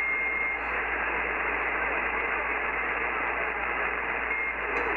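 CB radio receiver static: a steady band-limited hiss on an open channel during weak skip conditions, with a faint thin whistle briefly at the start and again near the end.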